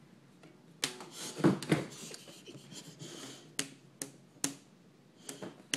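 A rubber band stretched around a cardboard game box snapping and twanging against the box, about seven sharp snaps spread over several seconds, the loudest about one and a half seconds in.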